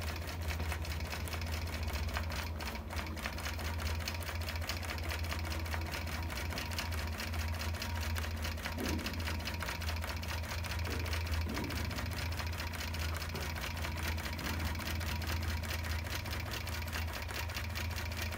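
Gammill long-arm quilting machine stitching steadily as it bastes the quilt top down, a rapid, even needle ticking over a low motor hum.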